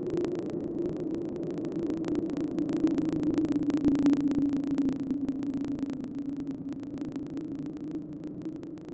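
Hollow wind sound effect of the horror kind: a low, hollow-toned rush of wind that swells to its loudest about four seconds in, then slowly fades.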